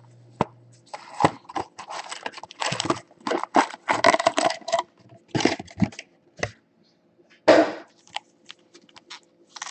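A cardboard trading-card box and foil-wrapped card packs being handled: irregular crinkles, rustles and light taps as the box is opened and the packs are laid out, with a louder rustle about seven and a half seconds in.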